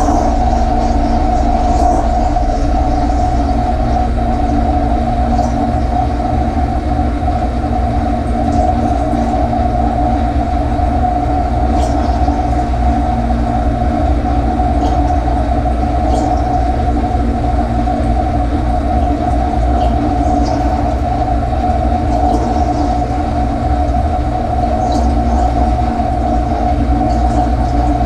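Portable dishwasher's motor and pump running, heard from inside the tub: a steady, loud hum with a low rumble and a couple of held tones, with scattered faint ticks over it.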